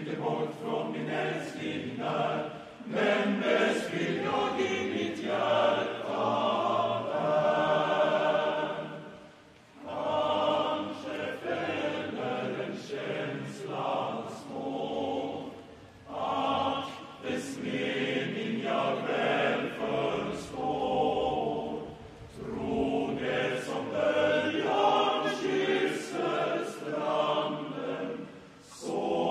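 Large male voice choir of about 200 singers singing a song in full chords, in long phrases with short breaks between them.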